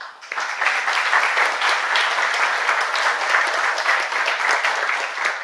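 Audience applauding: many hands clapping in a dense, steady patter that starts suddenly at the end of a lecture.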